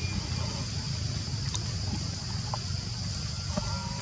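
Outdoor ambience: a steady low rumble of wind on the microphone under a steady high hiss, with a few faint clicks. Near the end a chicken starts to call.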